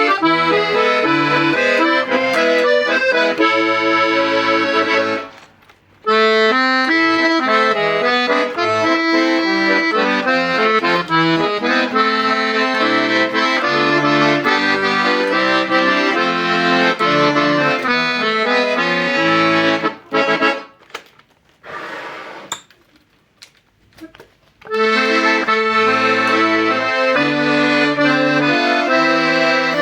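Hohner Concerto III piano accordion being played: a melody on the treble side over lower bass notes and chords. The playing breaks off briefly about five seconds in, and again for a few seconds around twenty seconds in.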